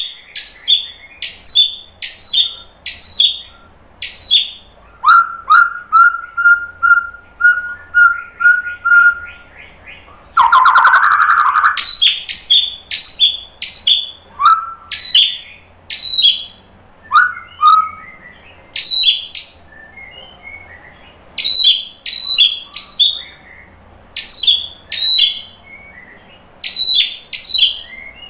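White-rumped shama singing loudly: sharp, clear notes repeated in quick series, each dropping in pitch, with a run of quicker, lower notes and a harsh rasping note partway through.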